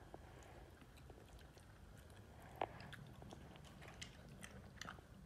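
A small dog eating tender boiled pork rib meat from a stainless steel bowl: faint chewing with scattered small clicks, the sharpest about two and a half seconds in.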